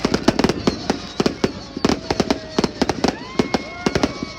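Fireworks display: a dense, rapid run of crackling bangs and pops, several a second.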